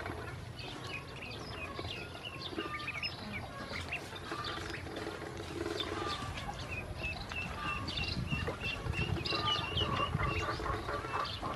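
A group of ducklings cheeping in many short high peeps while they eat and drink, with a quick run of repeated cheeps in the second half. Underneath is a low rumble that grows louder about eight seconds in.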